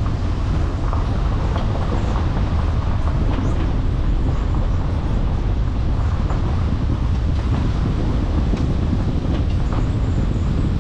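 A car driving, with a steady low rumble of engine and tyre noise and scattered light clicks and knocks.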